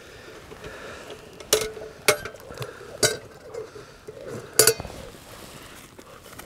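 Lidded camp oven clanking against a wire grill as it is set over the fire, its wire bail handle and lid clinking: four sharp metallic clanks, each with a brief ring, the last one the loudest.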